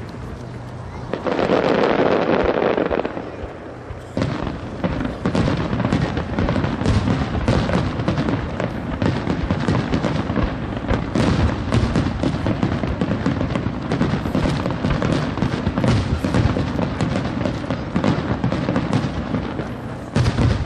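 Japanese starmine fireworks barrage: shells launched in quick succession and bursting overhead in a dense run of bangs and crackles. There is a loud swell about a second in, a short lull near four seconds, then a thick, unbroken stream of reports.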